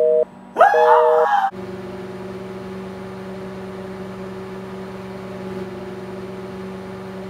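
Pulsed two-tone beeping with a man's wailing moan over it cuts off about a second and a half in. A microwave oven then runs with a steady electrical hum.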